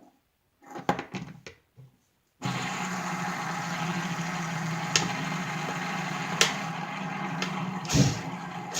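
A ball bearing spun on a tabletop, whirring steadily. The whir starts suddenly about two and a half seconds in, after a few handling clicks, and a few sharp knocks come over it later on.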